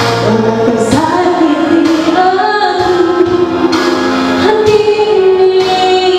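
A woman singing into a microphone, holding long notes that bend and slide between pitches.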